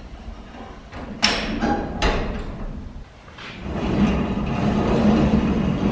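Two sharp metal clunks about one and two seconds in as the hay forks lock into a roughly 100-year-old hay trolley, then, from about three and a half seconds in, a steady rolling rumble with a low hum as the trolley is pulled along its overhead track by rope.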